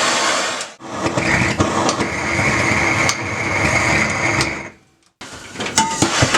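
A power tool running in two long stretches, a loud grinding noise with a steady whine. After a brief silence near the end come scattered clicks and knocks.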